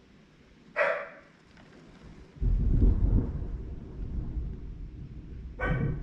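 A dog barks once, then about two and a half seconds in a clap of thunder breaks and rumbles on. The dog barks again near the end, over the rumble.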